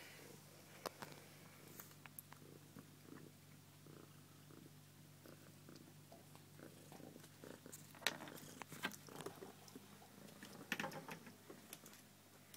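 A faint steady low hum under scattered small clicks and scratches, loudest about eight seconds in and in a quick cluster around eleven seconds, from a Syrian hamster moving about and nibbling in its wire cage.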